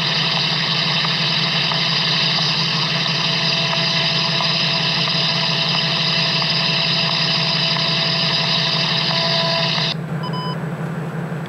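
Steady loud hiss of radio static with a low hum beneath, from a handheld radio-noise ghost-hunting device. The static cuts off abruptly about ten seconds in, leaving a fainter hiss with a couple of short beeping tones.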